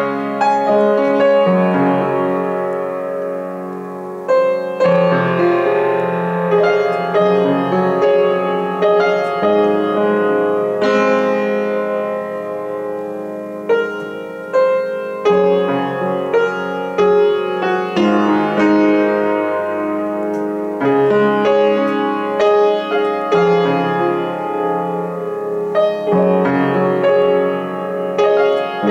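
Upright piano played solo with both hands: chords and melody struck every few seconds, each ringing and fading under the sustain before the next.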